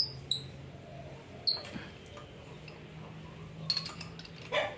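Metal spark plug socket clinking and clicking against the spark plug and cylinder head of a motorcycle's twin-cylinder engine as it is fitted on to undo the plug. There are a few short ringing pings in the first second and a half, then a cluster of clicks and a knock near the end, over a faint steady hum.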